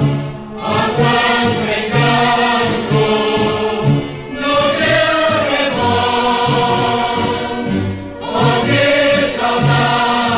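Municipal anthem sung in Portuguese over a repeating bass line.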